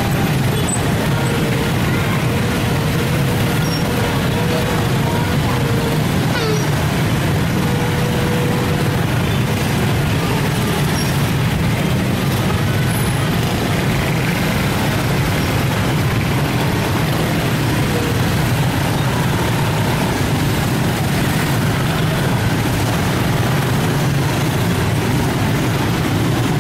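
Steady roadside traffic noise: a continuous low rumble of bus and truck engines, with voices mixed in.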